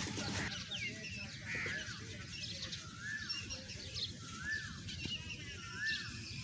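Birds calling: one bird repeats a short arched call, rising then falling, four times about a second and a half apart, among scattered smaller chirps.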